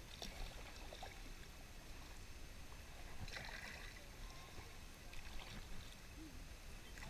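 Faint paddling on river water: paddle dips and trickling water, with two brief louder splashes about three and five seconds in.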